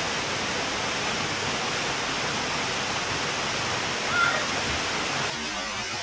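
Small waterfall pouring down a rock face into a pool, a steady rush of falling water. A brief high-pitched sound rises over it about four seconds in, and near the end the sound of the water drops suddenly.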